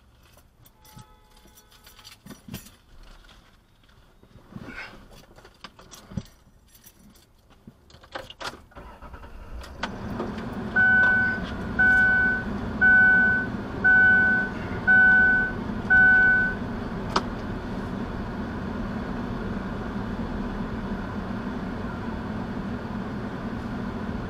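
Keys and small clicks and rustles inside a car's cabin, then the car's engine starts about ten seconds in and runs steadily. Just after it starts, a dashboard warning chime beeps six times, about once a second.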